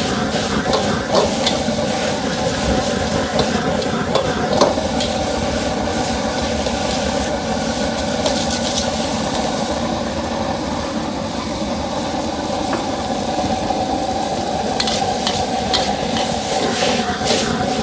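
Noodles stir-frying in a metal wok: a long metal spatula scraping and turning them, with sizzling and a steady hum underneath. Sharper clinks of the spatula against the wok come near the start and again in the last few seconds.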